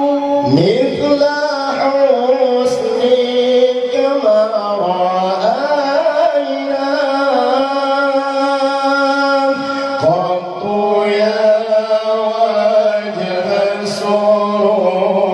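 Two men singing sholawat, praise songs for the Prophet, as a high-pitched duet through microphones. They hold long notes with wavering melismatic ornaments, and a new phrase sweeps up in near the start and again about ten seconds in.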